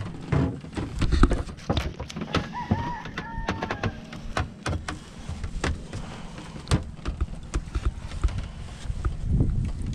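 Irregular knocks and clicks over a steady low rumble, aboard a small wooden outrigger boat with a bamboo frame under way on a lake. A brief wavering whistle-like call sounds about two and a half seconds in.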